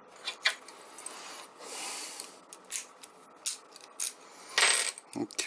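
Small tools and lock parts handled on a workbench: scattered light clicks and taps, a soft rub about two seconds in, and a louder scrape just before the end.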